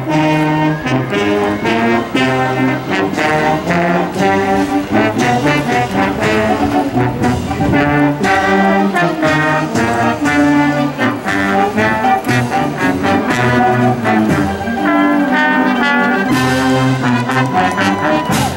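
High school marching band playing a march: brass (trombones and trumpets) carrying the tune over steady drum beats.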